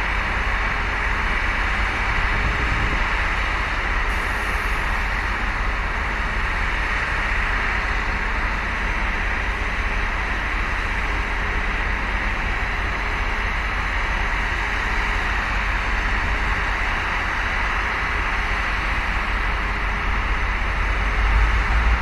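Steady drone of a standing R110 diesel locomotive and its generator power van idling, with a low rumble that grows louder near the end.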